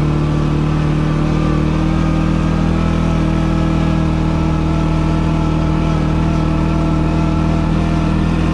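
ATV engine running steadily at an even speed, with little change in pitch.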